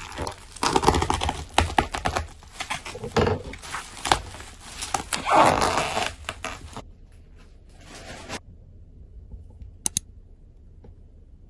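Black plastic bubble wrap crinkling and rustling with many small crackles as it is slit open and pulled off a boxed tablet. The handling stops about seven seconds in, and a brief sharp tap follows near ten seconds.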